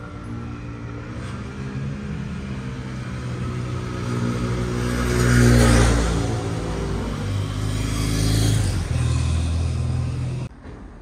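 Motor vehicles driving close past, engines accelerating and shifting in pitch, with two loud pass-bys about five and a half and eight and a half seconds in. The sound cuts off abruptly near the end.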